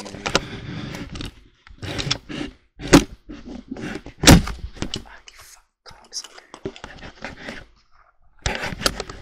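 Camera handling noise: a run of knocks, thuds and scrapes as the camera is moved about and bumped. The two loudest knocks come about three seconds and about four and a half seconds in.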